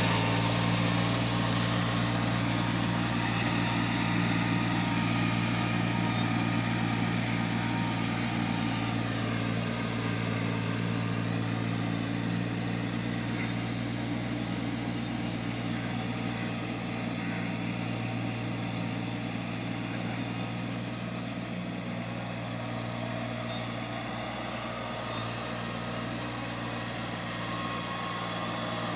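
Kubota four-wheel-drive mini tractor's small diesel engine running steadily under load as it drives a rotavator through a flooded paddy. The engine grows gradually fainter as the tractor moves away.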